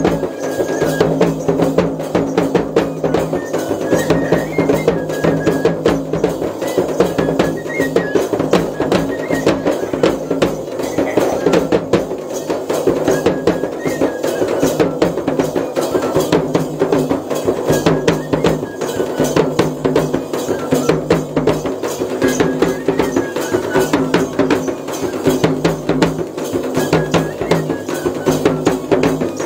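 Dance music with fast, steady drumming and a melody line stepping above it.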